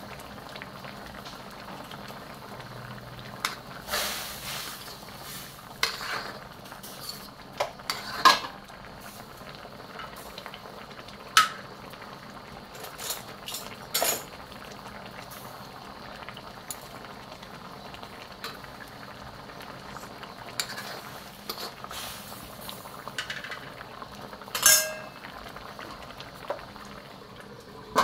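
Fish curry with fish paste bubbling steadily in an uncovered steel wok, broken by a few sharp pops and metallic clinks. A metal lid clanks onto the wok right at the end.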